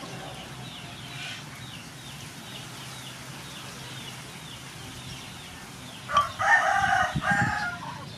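Rooster crowing once, a single long call of nearly two seconds near the end.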